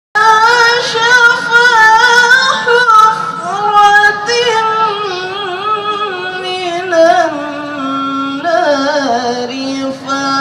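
A woman's voice reciting the Qur'an in melodic tilawah style: long held notes with ornamented turns, sinking to a lower pitch about eight seconds in.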